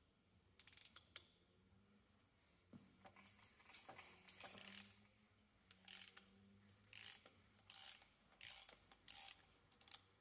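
Faint, short rasps of a hand socket ratchet being worked back and forth, repeating roughly every second through the second half. It is loosening the drain plug on a dozer final drive.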